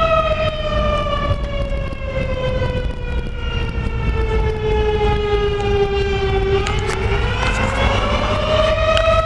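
Fire station's outdoor air-raid-style warning siren wailing, loud and steady. Its pitch sinks slowly for about six seconds, then climbs back up near the end.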